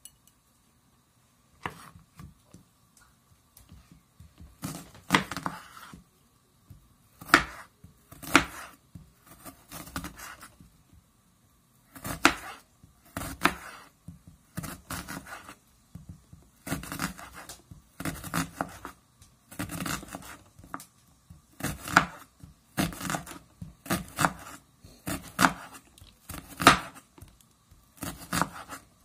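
Knife slicing a peeled onion on a bamboo cutting board: repeated crisp cuts, roughly one a second, starting a couple of seconds in, with a short pause about a third of the way through.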